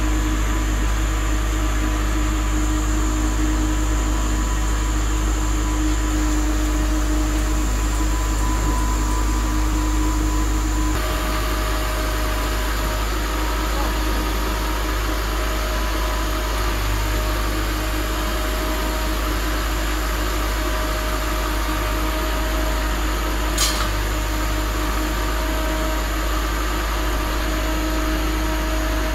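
Kale harvester machinery running steadily: a deep rumble with constant whining tones over it, the mix shifting slightly about 11 seconds in, and a single sharp click about 24 seconds in.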